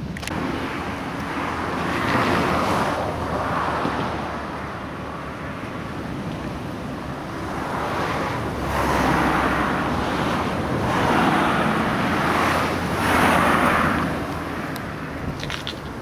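Cars passing on a road, each a broad rushing swell of tyre noise that rises and fades, with wind on the microphone. Several pass; the loudest come in the second half.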